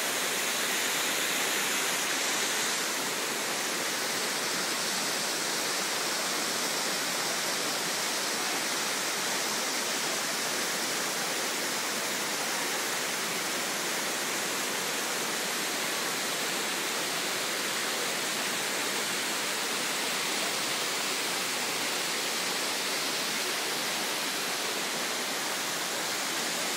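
Steady rushing of a waterfall and the water running over the rocks of its stream, slightly louder for the first couple of seconds.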